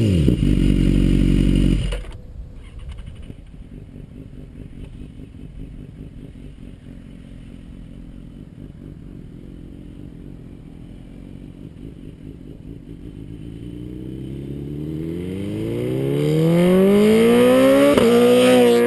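BMW S1000RR inline-four with a titanium full-system exhaust, first settling to a low, steady idle just after a rev blip. Then the engine is heard faint and far off and comes closer in a low-rpm, low-speed fly-by, its note rising steadily in pitch and getting loud over the last several seconds.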